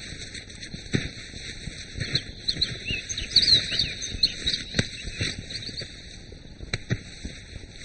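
Outdoor rural ambience: birds chirping in short twittering calls through the middle, over a steady high hiss, with a few sharp knocks.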